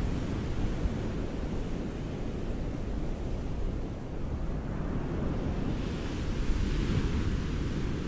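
Ocean surf on a beach: a steady low rumble of waves, with a hiss of washing water that fades a little mid-way and swells again as a wave breaks about six seconds in.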